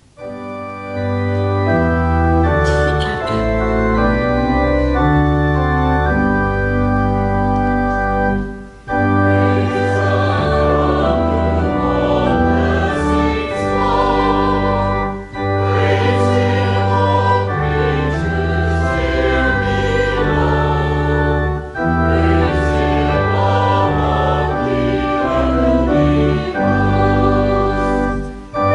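Church organ playing sustained chords in phrases of about six seconds each, with a choir singing along from about nine seconds in.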